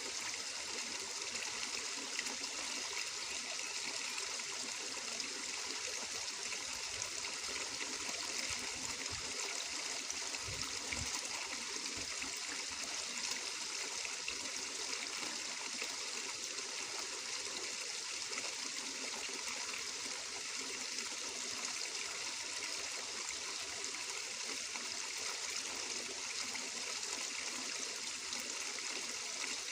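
Flowing water trickling steadily, an even, bright rush without pauses.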